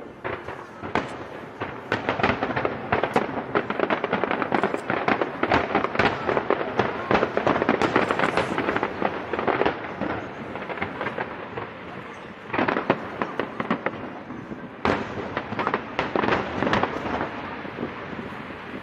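Aerial fireworks display: a dense run of bangs and crackling starts about a second in, thins out after about ten seconds, and returns as shorter clusters of bursts near the end.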